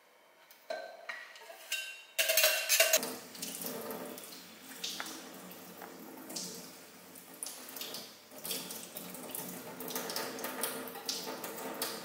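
Ceramic bowls clinking as they are washed and set down by the kitchen sink, then water running from the tap into the sink from about three seconds in, with scattered clicks of dishes.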